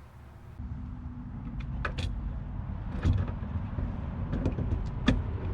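Sharp clicks and knocks from a door lockset being handled and fitted into a door, several times, over a low steady rumble that starts abruptly about half a second in.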